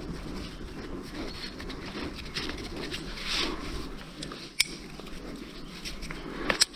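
Climbing rope and rigging gear being handled, a steady rustling with two sharp clicks, one a little past the middle and one near the end.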